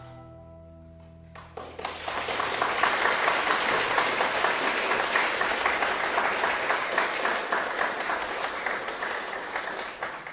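The final notes of a guzheng ensemble ringing out and dying away, then audience applause that starts about a second and a half in and keeps going.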